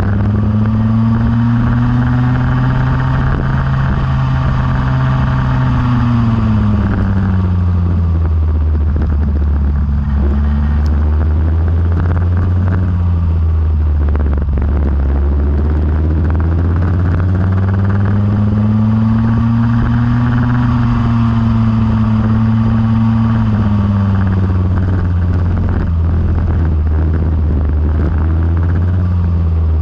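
Go-kart engine running continuously, its revs climbing and falling twice as it speeds up and slows down.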